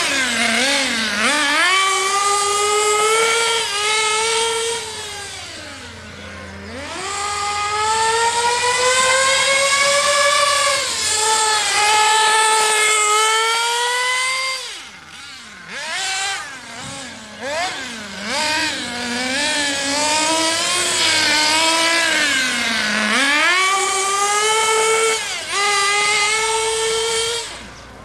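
HPI Trophy 3.5 buggy's small nitro engine, geared with a long clutch bell, screaming at high revs and dropping back again and again as the buggy is driven hard. The pitch falls deeply about six seconds in and again around fifteen seconds in, and the note fades right at the end.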